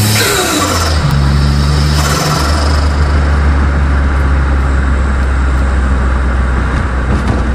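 Turbocharged Daihatsu L7 engine pulling through the gears, its pitch climbing and then dropping at each shift, near the start and again about two seconds in. At the first lift-off the turbo gives a quick falling whistle. After that it runs steadily at cruise under wind and road noise.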